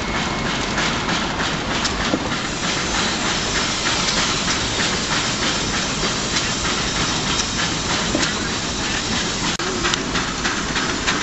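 Case steam traction engine under way, its stack exhaust going in quick, steady chuffs over a constant hiss of steam.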